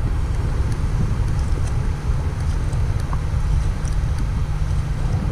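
Wind buffeting the camera microphone: a steady, loud, low rumble.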